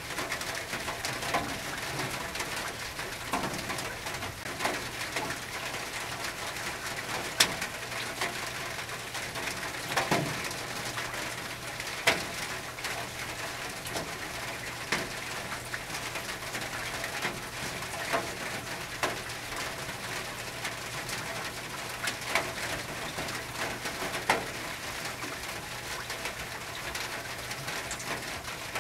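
Steady rain on a tin roof, with irregular sharp drips striking the metal every second or few.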